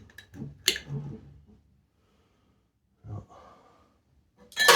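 A few light clicks and a soft knock, then a loud, sharp breath out near the end.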